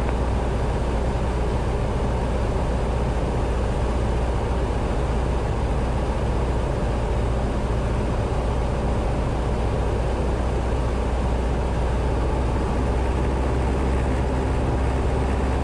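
Steady drone of a Grumman AA-5-series single-engine light plane's piston engine and propeller, heard inside the cabin in level flight. It is mostly low rumble and does not change.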